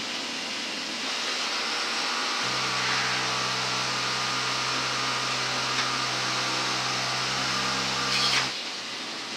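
A steady hiss with a machine hum that starts about two and a half seconds in and cuts off suddenly near the end, just after a brief louder burst.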